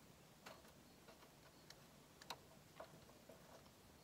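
Near silence with a few faint, scattered metallic ticks and clicks, the loudest a little past two seconds in: a bolt being threaded in by hand, with fingers and the bolt knocking lightly on the engine parts around it.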